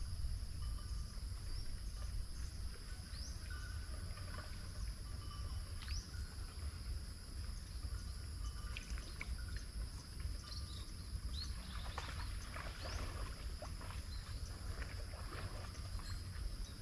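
Rural outdoor ambience: steady high-pitched insect drone over a low wind rumble on the microphone, with a few short rising bird chirps and faint clicks.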